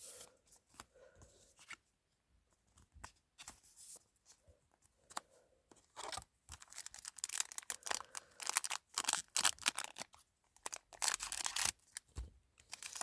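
A Yu-Gi-Oh booster pack's foil wrapper being torn open and crinkled. It starts with a few scattered faint rustles, then turns into dense, irregular crinkling and tearing from about halfway through.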